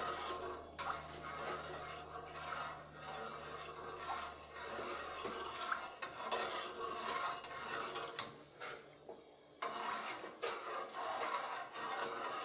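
A slotted spoon stirring and scraping around a large pot of watery pigeon peas in coconut milk, with small clinks against the pot's side. The stirring stops briefly about eight seconds in, then picks up again.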